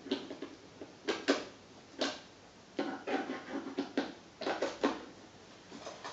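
Scraping, rustling and clattering of things being handled in a string of short, irregular bursts, as a model railway controller is being plugged in.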